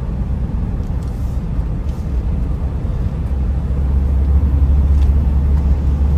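A car driving, heard from inside the cabin: a steady low rumble of engine and tyre noise that grows louder about four seconds in.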